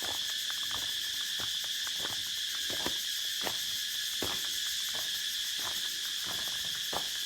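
Steady high-pitched chorus of jungle insects, with irregular footsteps about every half second to second.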